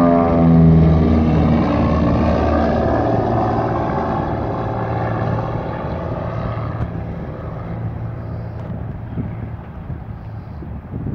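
Grumman Widgeon amphibian's twin piston engines and propellers at full power passing low overhead, the engine note dropping in pitch as it goes by, then fading steadily as the plane climbs away.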